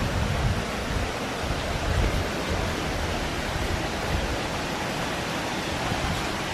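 Steady rushing of a waterfall, an even wash of water noise with an uneven low rumble underneath.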